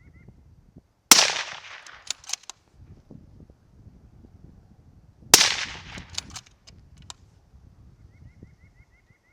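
Two suppressed rifle shots about four seconds apart from a 6.5 Creedmoor fitted with a Surefire SOCOM762-RC suppressor. Each is a sharp report with a fading tail, followed by a few short clicks.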